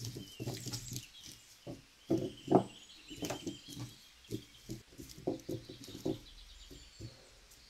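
Plastic thread spools clattering and knocking against one another as a hand pushes and sorts them on a table: a string of irregular short clacks, the loudest a little over two seconds in.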